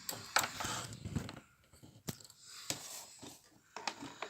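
Plastic and cardboard action-figure packaging being pried and torn at by hand, with irregular crinkling and crackling and a few sharp clicks, about two and nearly three seconds in.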